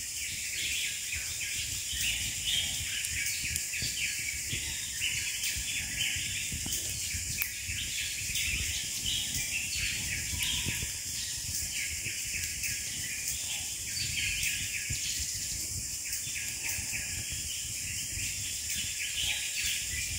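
Outdoor chorus of many birds chirping rapidly over a steady high-pitched insect hum, with a low rumble underneath.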